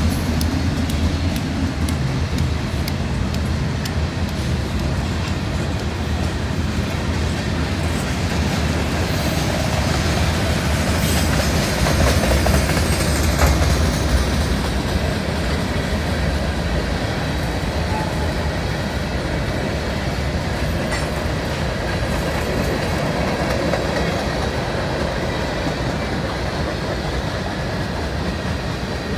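CSX freight train rolling past at close range: a steady rumble and clatter of steel wheels on rail as covered hoppers and tank cars go by, with scattered clicks.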